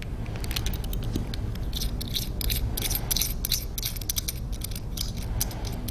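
Ratcheting wrench clicking rapidly and unevenly as it backs off the upper stem nut on a Cla-Val CRL pilot's sensing chamber and stem assembly.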